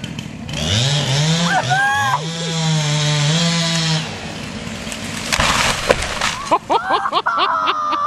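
A chainsaw revs up twice and holds at full throttle as the felling cut is finished. About five seconds in, the tree comes down with a rush through the branches and a crash onto the house roof, followed by a flurry of wood cracking and splintering with people shouting.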